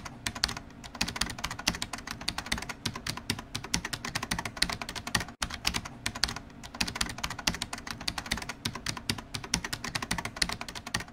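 Fast computer keyboard typing, a dense clatter of many keystrokes a second, breaking off for an instant about halfway through.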